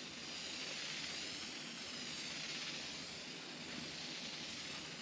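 Sherwin-Williams aerosol spray paint can hissing steadily in one continuous spray of paint.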